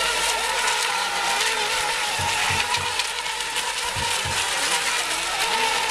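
Electric RC racing boats of the ECO Mini Expert class running at speed: a steady whine of several motors whose pitch wavers as they round the course, over a steady hiss.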